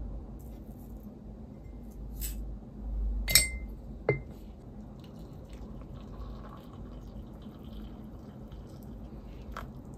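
Making coffee at a desk: two sharp clinks with a short ringing tone, about three and four seconds in, as ground coffee is put into an enamel mug, among quieter handling clicks. Later comes a faint sound of hot water being poured from a kettle into the mug.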